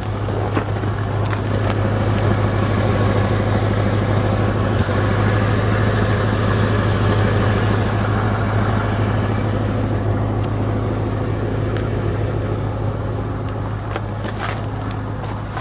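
The 5.0-litre (302) V8 of a 1989 Lincoln Town Car idling steadily on a freezing morning soon after a cold start. The engine has an exhaust leak.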